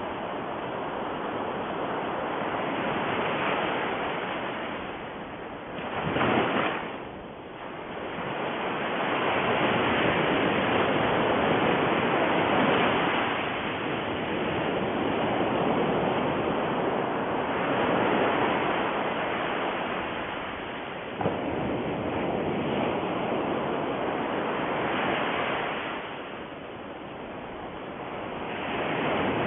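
Ocean surf: a steady wash of waves that swells and ebbs every few seconds, with one brief louder surge about six seconds in.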